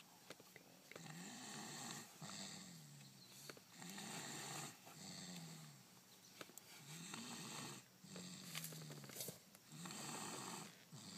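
Snoring: a low, pitched rasp on each breath, repeating in a steady rhythm of about one breath every three seconds.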